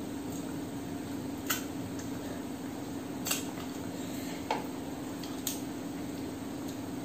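Four light clinks of fingers picking food off a stainless steel plate, over a steady low hum.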